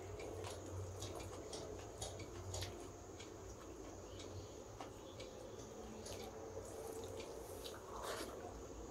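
Close-miked eating sounds: rice with dal and vegetables squished and mixed by hand on a steel plate and chewed, with many small wet clicks and smacks. A louder mouthful comes near the end.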